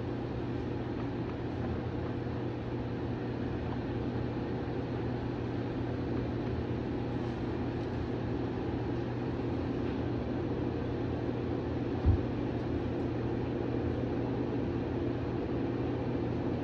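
A steady mechanical hum with several low fixed tones over a hiss, with a single low thump about twelve seconds in.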